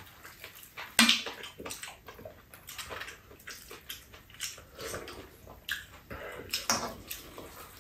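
Eating sounds: metal spoons scraping and tapping against bowls and a frying pan of fried rice, mixed with wet chewing, with a sharper clink about a second in.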